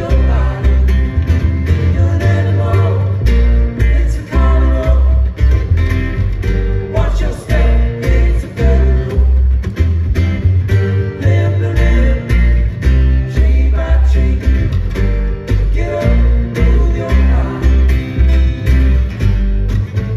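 Live acoustic string band: an upright double bass plucking low notes on a steady beat under two acoustic guitars.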